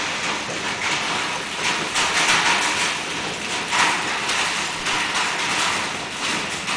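Hailstorm: hailstones pelting a concrete driveway and lawn, a dense, steady clatter of many small hits.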